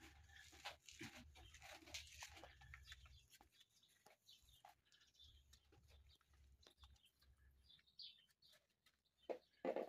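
Near silence with faint rustling and small snaps of garden lettuce leaves being picked off by hand, and two sharper clicks near the end.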